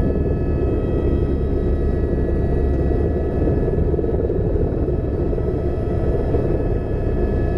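Helicopter flying overhead: a steady, fluttering rotor rumble with a constant high turbine whine over it.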